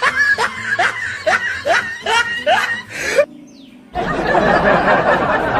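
A person laughing in a run of short, rising bursts, about two a second, which break off about three seconds in. After a brief lull, a denser, noisier stretch follows.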